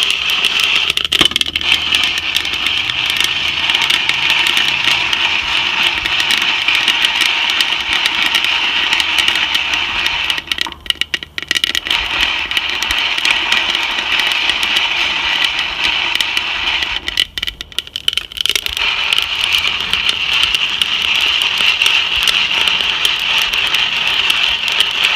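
Coffee beans rattling and tumbling as the crank of a Whirley Pop popcorn popper stirs them, with the beans crackling steadily in first crack. The rattle drops away briefly twice, about ten and seventeen seconds in.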